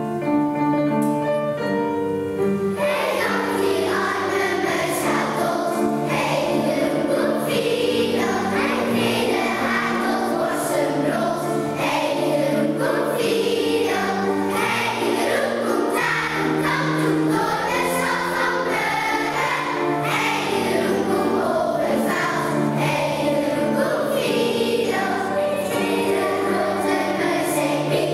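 Singing with keyboard accompaniment: keyboard chords alone for the first couple of seconds, then voices come in and carry a melody over them.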